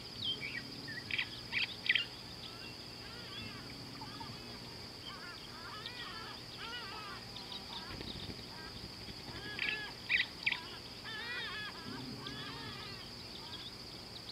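Birds chirping and calling over a steady, high-pitched insect drone. There are series of quick arching chirps, and two sets of three sharp, loud call notes: one near the start and one about ten seconds in.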